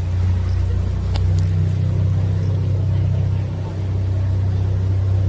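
Electric tour boat under way, its motor giving a steady low hum, with two faint clicks a little over a second in.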